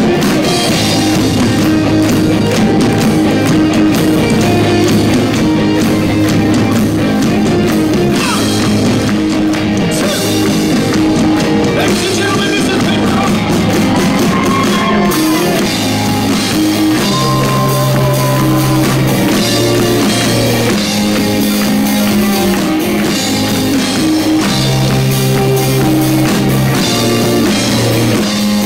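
Live rock band playing loudly, with electric guitar, drums and a male lead voice singing, heard from within the audience.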